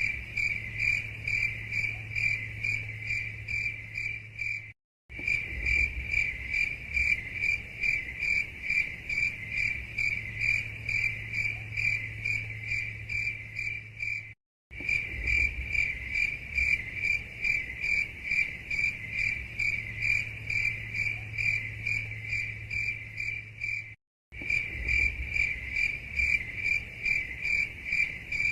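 Cricket chirping in rapid, even pulses, several a second, over a faint low hum. The looped recording cuts to silence for a split second three times, about every ten seconds.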